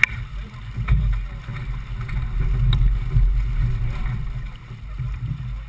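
Wind rumbling on the microphone and water rushing along the hull of a J/24 sailboat under sail, with a couple of sharp clicks.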